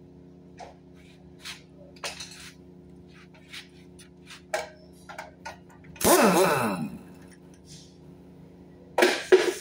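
Light metal clinks and taps of tools on a petrol engine block, over a steady low hum. About six seconds in a pneumatic wrench runs in a burst of about a second, its pitch sweeping as it spins, and runs again briefly near the end.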